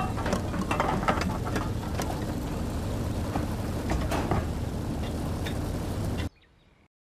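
Truck engine running with a steady low rumble under scattered rattles and knocks. It cuts off suddenly about six seconds in.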